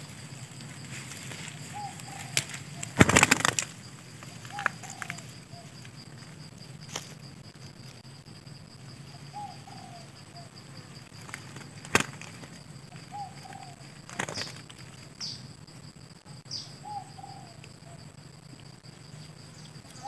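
Parakeets' wings flap in a short loud flurry about three seconds in as the birds fly in to perch. A short falling call repeats every few seconds, with a few brief high chirps in the second half, over a faint steady high whine.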